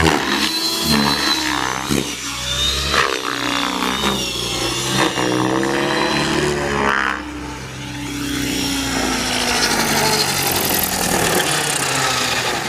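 Align T-Rex 600E electric RC helicopter flying aerobatics: its motor whine and rotor noise keep sliding up and down in pitch as it manoeuvres, dipping a little about two-thirds of the way through before rising again.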